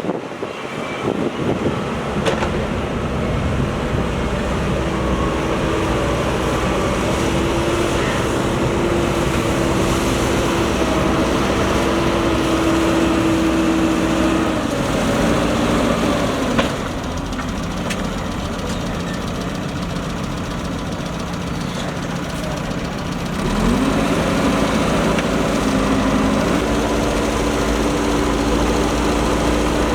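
Diesel engine of a JCB backhoe loader running steadily under working revs. A little past halfway there is a short knock and the engine drops to a lower, quieter speed. About three-quarters of the way through it revs back up.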